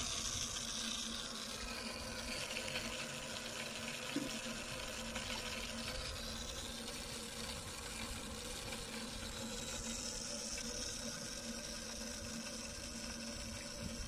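Water flowing under pressure through the pipework of a drip-irrigation headworks: a steady rushing hiss with a faint steady hum beneath it.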